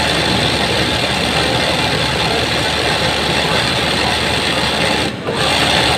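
Industrial sewing machine running fast as a cap is hand-guided under the needle for embroidery: a dense, steady mechanical rattle that stops briefly about five seconds in and starts again.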